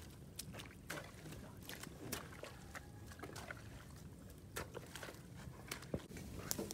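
A hoe chopping and dragging through a heap of wet mud and straw: a string of short, irregular strikes, a few each second.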